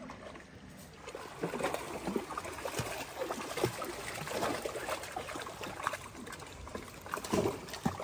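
Two Dalmatians wading through shallow river water, their legs splashing and sloshing irregularly, with a louder splash near the end.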